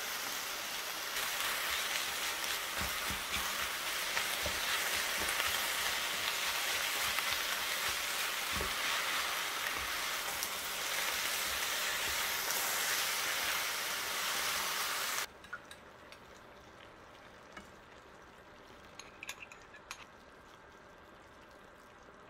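Food sizzling in a hot frying pan, a steady hiss that cuts off abruptly about fifteen seconds in, leaving quiet with a few light clicks.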